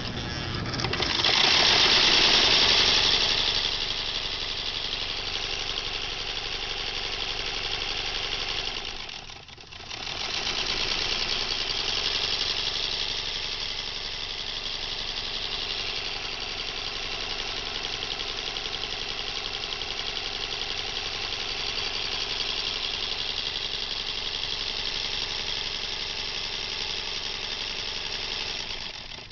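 Early electric Singer sewing machine running: its motor whirs and the needle mechanism clatters steadily. It is loudest in the first few seconds, slows almost to a stop about nine and a half seconds in, then picks up speed again and runs evenly until it stops at the end.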